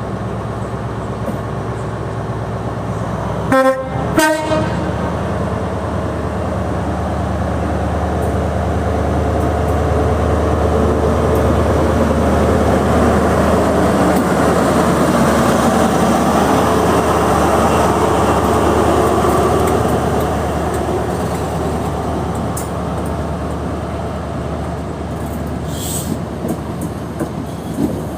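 A diesel train gives two short horn blasts about four seconds in. Its engine then drones steadily, swelling to its loudest around the middle as it moves past and then easing off.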